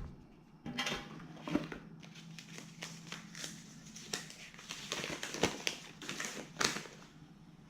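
Shower head packaging being opened and handled by hand: irregular crinkling and rustling of plastic wrap and cardboard, with a few louder crackles.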